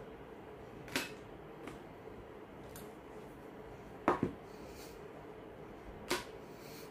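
Hand tools (screwdriver, needle-nose pliers) being set down one by one on paper over a wooden table: about four light knocks, one of them a quick double, over a faint steady hum.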